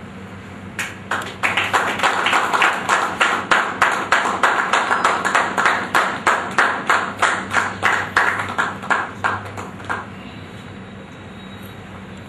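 Group of people clapping in unison, about three claps a second, starting about a second in and stopping about ten seconds in, over a steady low hum.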